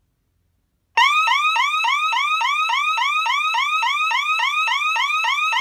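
Electronic alarm siren of a DSC PC1515 security system, set off by the keypad's police panic keys. It starts suddenly about a second in and sounds a continuous, extremely loud fast warble of rising sweeps, about five a second.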